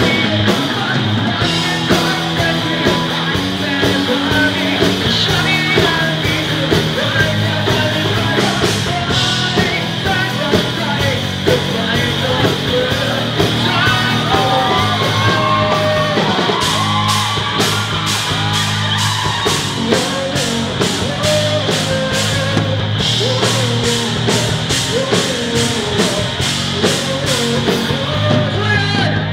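Live rock band playing: electric guitar and drum kit under a male singer singing and yelling into a microphone. Steady cymbal strokes come in a little past the middle.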